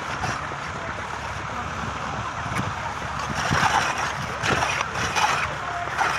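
Wooden sleds being towed over snow: a steady hiss of the runners sliding on the snow, with scattered light bumps.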